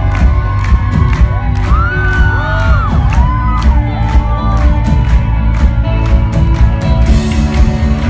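Rock band playing live through a concert PA, with a steady drum beat under sustained guitar and keyboard chords. Audience members whoop and cheer over the music about two seconds in.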